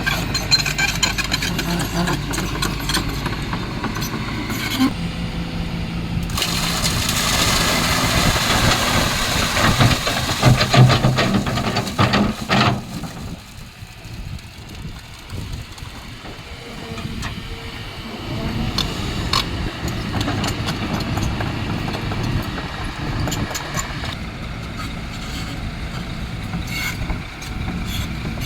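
Excavator diesel engine running. It grows louder and noisier under load for several seconds in the middle, eases off, then settles back to a steady run.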